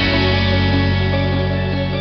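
Background music with guitar: a chord struck just before rings on steadily.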